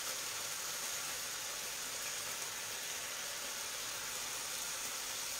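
Hake hearts sizzling in a frying pan: a steady, even hiss.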